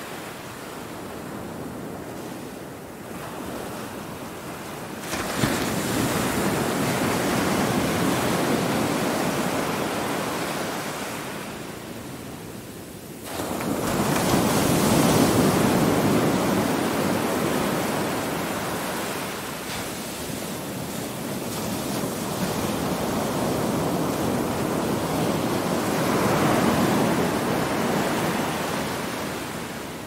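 Ocean surf breaking and washing up a sandy beach: a steady rushing hiss that swells three times as waves come in, sharply about five seconds in, loudest just after the halfway mark, and more gently near the end, each easing off slowly.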